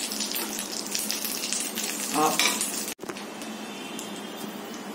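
Whole baby eggplants sizzling in hot oil in a kadai, with a wooden spatula scraping and stirring them through dry-roasted masala powder. The sound cuts out for an instant about three seconds in, then the sizzle goes on more quietly.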